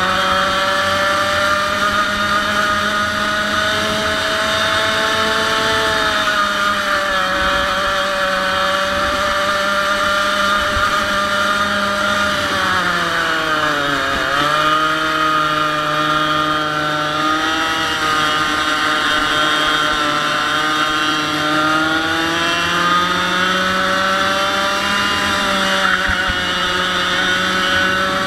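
100cc two-stroke kart engine running at high revs with a buzzy, even note. About halfway through the pitch drops sharply as it comes off the throttle, then climbs back up as it accelerates again.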